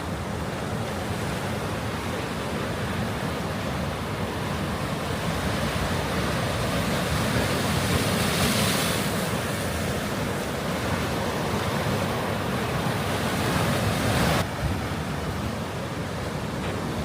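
Sea waves washing onto the shore, a steady surf with one louder wave around the middle, with wind on the microphone. The sound drops abruptly and becomes duller a little before the end.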